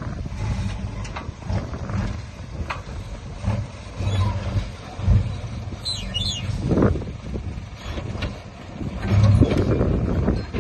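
Diesel engine of heavy earthmoving machinery running under load, with scattered knocks and clanks, and louder surges about seven seconds in and again near the end.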